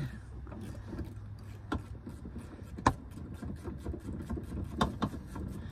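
A few light clicks and knocks of hand tools on the door hinge bolts, spaced a second or two apart, over a steady low rumble.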